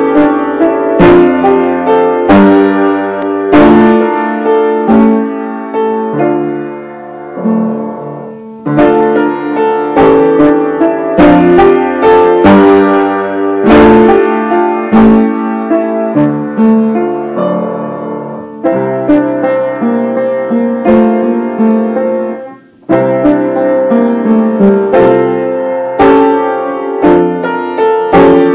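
Piano music: chords and melody notes struck and left to ring, in phrases, with a brief break about three quarters of the way through.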